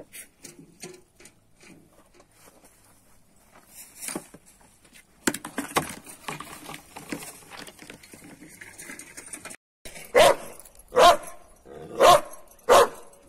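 Light knocks and rustling, then from about ten seconds in a dog barks four times, loud and evenly spaced.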